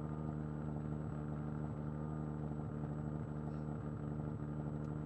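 Wag-Aero light aircraft's piston engine and propeller running steadily at low taxi power, heard from inside the cockpit.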